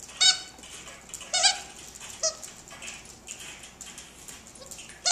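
Squeaker inside a plush dog toy squeaking as a dog bites and chews it: three short, high squeaks in the first two and a half seconds and another at the very end.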